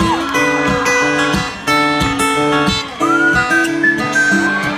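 Live band music led by a strummed and picked acoustic guitar, an instrumental stretch with no singing, with a few gliding high notes.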